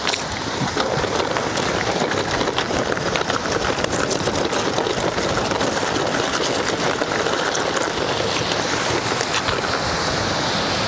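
Steady rush of wind and surf, with scattered crunching and rattling as a fully loaded touring bike is pushed over gravel and rough ground.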